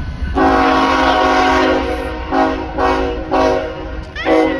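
Diesel freight locomotive's multi-chime air horn sounding a salute: one long blast, then a string of about four short toots.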